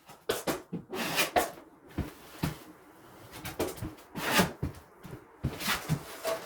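Drywall knife working joint compound: a string of short scrapes, taps and knocks, with a few longer scraping strokes.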